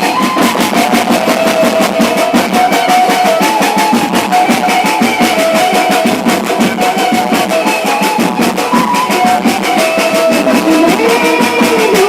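Loud music played over a sound system: a fast, steady drum beat under a held melody line, thin in the bass.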